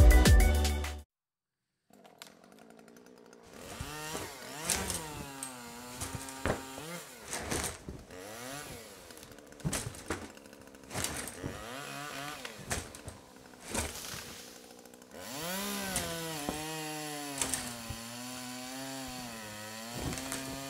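Background music cuts off about a second in. After a short pause, a hand-held power tool's motor works on wood, its pitch repeatedly dipping and rising as it bites and eases off, then running more steadily near the end.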